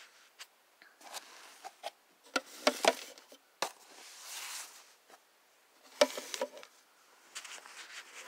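Handling noise of a clear plastic tub being moved: irregular clicks and knocks with short scraping rustles. The loudest clicks come about two and a half to three seconds in, with another cluster around six seconds.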